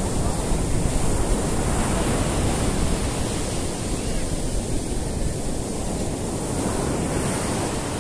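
Rough sea surf breaking in rows and washing up a flat sandy beach: a continuous rushing wash of water with a deep low rumble, swelling slightly in the first couple of seconds.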